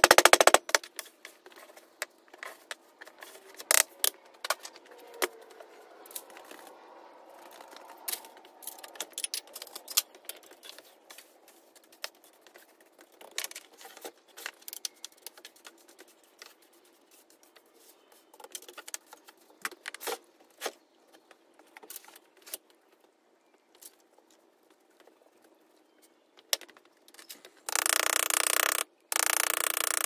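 A hammer rapidly tapping casting sand down in a wooden moulding flask for about half a second, then scattered knocks, taps and faint scraping as loose sand is handled and brushed off the bench. Near the end comes a loud rushing noise in two parts with a short break between them.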